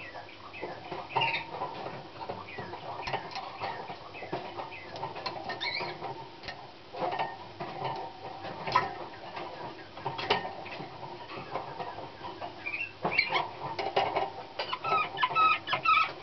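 Young Slavujar song canary singing in scattered bursts of clicks, chirps and short rolling notes, louder near the end with clearer whistled notes.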